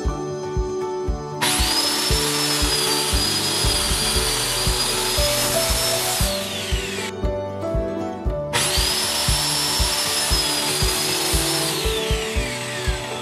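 Corded circular saw cutting aluminium plate, run twice. It starts about a second and a half in, runs with a high whine for about five seconds, then winds down with a falling pitch. It starts again near the middle and winds down near the end. Background music with a steady beat plays throughout.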